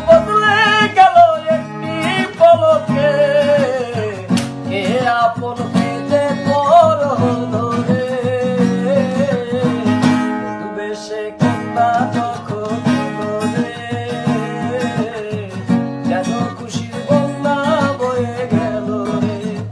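Background music: a slow song with plucked guitar chords under a wavering, bending melody line.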